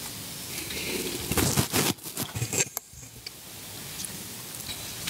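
Rustling and handling noise close to a lectern microphone, loudest about one and a half to two seconds in, with a few soft clicks.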